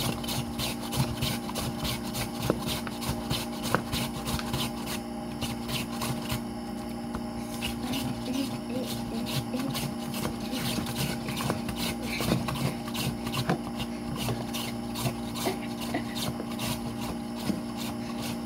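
Raw potato being pushed over the slicing blade of a stainless steel box grater in rapid, repeated rasping strokes, cutting thin slices for crisps.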